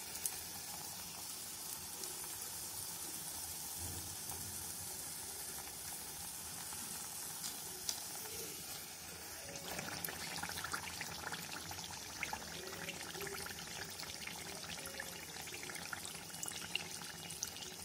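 Neyyappam batter deep-frying in sunflower oil in a cast-iron kadai: a steady, soft sizzle, with a few clicks of a wire-mesh skimmer touching the pan as the fritter is turned.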